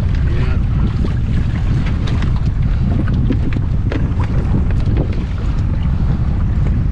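Steady wind buffeting the microphone out on open water, with scattered small clicks and knocks as gear on the kayak is handled.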